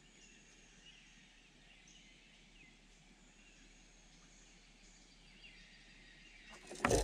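Faint bird calls over a quiet background. Just before the end, a sudden loud burst of noise starts.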